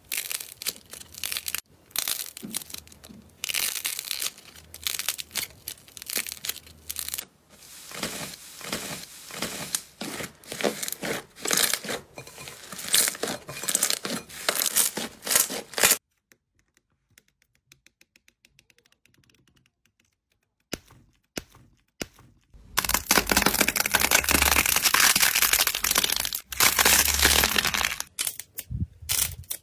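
Slime being squeezed, pressed and pulled apart by hand, giving dense crackly popping and sticky tearing. It breaks off into near silence about halfway, then comes back louder with tearing and crackling near the end.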